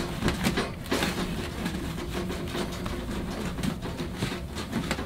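A cloth rag rubbing and wiping over the stainless steel body of a portable charcoal grill in repeated strokes, over a steady low hum.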